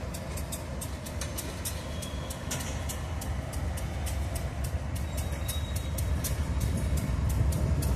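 Freight train of covered grain hopper cars rolling slowly past, a steady low rumble with rapid, irregular clicking and rattling from wheels and couplings; the rumble grows louder near the end.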